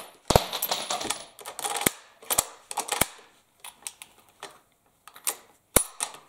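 Bolt of a Norwegian Krag-Jørgensen rifle being worked again and again, feeding empty brass casings from the magazine and ejecting them: a run of sharp metallic clicks and clacks with short sliding rasps.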